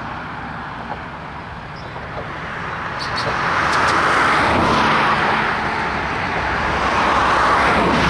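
Road traffic noise: tyre and engine sound of vehicles passing, swelling up about three to four seconds in, easing off, and swelling again near the end.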